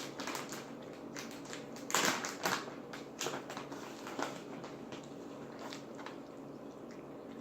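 Eating up close: a run of crisp crackles and clicks from biting and chewing, the loudest two about two seconds in, thinning out after about four and a half seconds.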